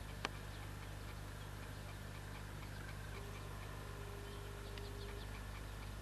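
Small birds calling in short, rapid chirps over a steady low hum, with one sharp click just after the start.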